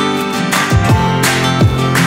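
Background music: strummed acoustic guitar, joined by a deep drum beat about three-quarters of a second in.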